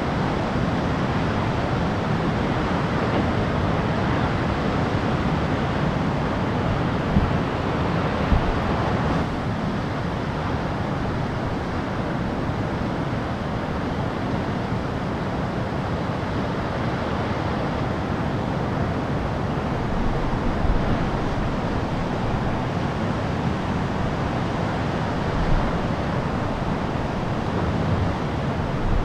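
Steady rushing roar of heavy ocean surf breaking, mixed with wind buffeting the microphone, with a few soft bumps.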